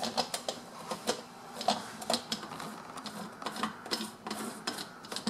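Plastic cups and blade base of a personal bullet-style blender clicking and knocking against each other and the counter as they are handled and the blade base is fitted onto a cup. The small clicks come irregularly, a few each second.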